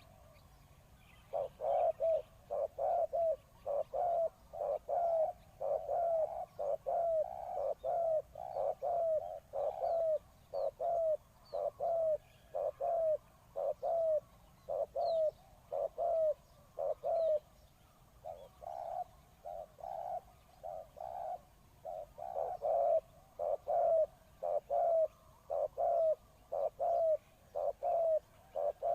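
Spotted dove cooing over and over: short, low coos of the same shape at about two a second, with a brief lull about two-thirds of the way through before the calling picks up again.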